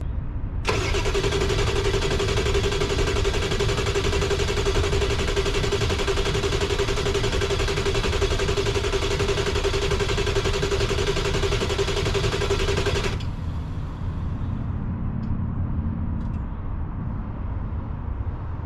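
Ford 7.3 Powerstroke diesel being cranked by its starter for about twelve seconds with a steady whine, never firing, then the starter cuts off suddenly. This is the truck's crank-no-start fault, still there after a new IPR valve. A quieter low rumble follows.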